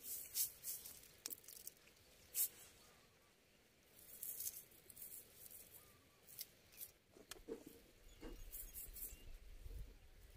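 Faint rustling and scattered soft crackles and clicks of a nylon cast net being handled while small fish are picked out of its mesh.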